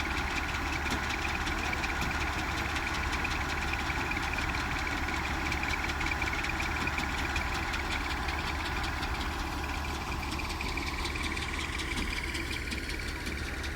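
A farm machine's engine running steadily with a fast, even pulsing, during rice harvesting. Its higher part eases a little about ten seconds in.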